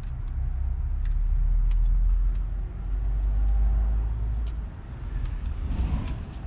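A low rumble that drops away a little over two thirds of the way through, with faint clicks and taps of a tool on a plastic wiring-harness connector and its lock tab.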